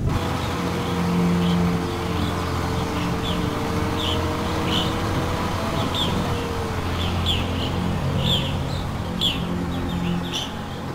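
Small birds chirping in woodland, with short, high, falling chirps repeating about once a second and coming more often toward the end. Underneath runs a low, steady drone of held tones.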